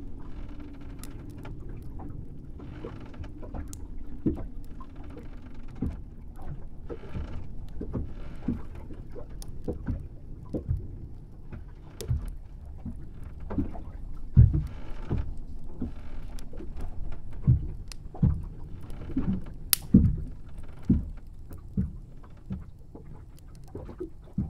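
Wooden boat ambience: a steady low rumble with irregular hollow knocks and creaks of the hull and soft swells of noise. The knocks are loudest and most frequent in the second half.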